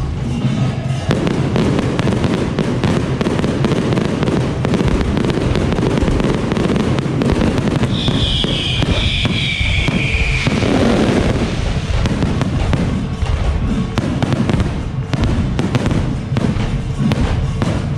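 Aerial fireworks display: a dense, continuous stream of bangs and crackling from shells bursting overhead, with a high whistle that falls slightly about eight seconds in.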